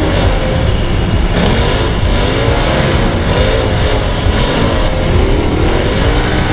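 Side-by-side UTV engine running hard across sand dunes, its pitch rising and falling as the throttle is worked, under a steady roar of wind and driving noise on the vehicle-mounted camera.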